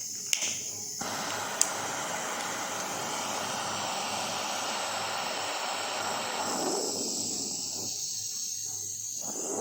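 Butane blow torch hissing with gas flowing, with two sharp clicks near the start. From about a second in it runs as a fuller, steady rushing hiss.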